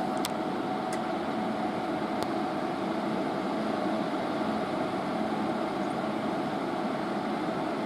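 Steady whirring hum of the VP-1000's fan unit, with a faint steady tone running through it and a few light ticks in the first couple of seconds.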